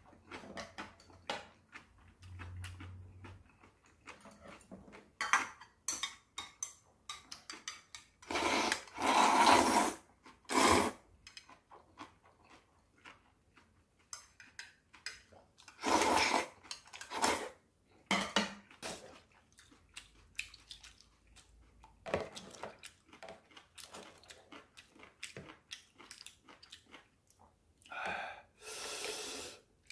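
Metal chopsticks and tongs clicking and scraping against plastic and ceramic bowls while noodles are served and eaten, with a few louder noisy bursts of a second or two.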